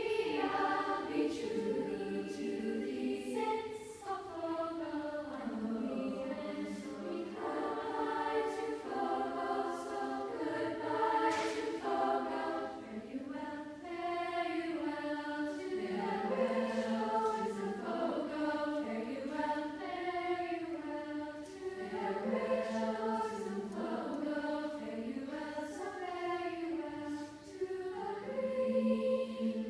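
A choir of girls singing a slow song in harmony, holding chords that move to new notes every second or so.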